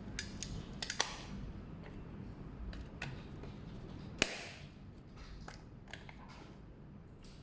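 Irregular sharp clicks and taps of small plastic parts of a disassembled Phomemo D30 label printer being handled, a quick cluster about a second in and the loudest single click about four seconds in.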